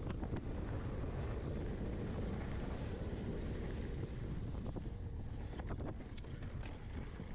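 Wind buffeting the microphone of a mountain bike rider at speed, a steady low rumble with trail and tyre noise under it, and a few faint clicks in the second half.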